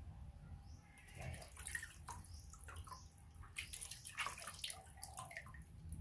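Water splashing and dripping in a plastic basin as a young monkey is washed by hand. Irregular small splashes and drips begin about a second in.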